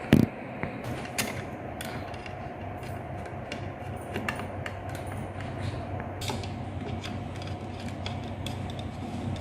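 Lamp fitting being screwed onto a 3D-printed plastic base cover: a sharp knock just after the start, then scattered clicks and creaks of the screwdriver and screws working into the plastic, over a steady low hum.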